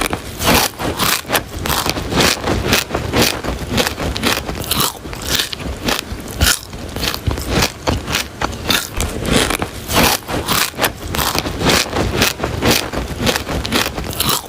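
Gritty material being scraped and pushed along a hard surface: a dense, continuous crunching and scraping, typical of a small bulldozer blade working through concrete mix or gravel.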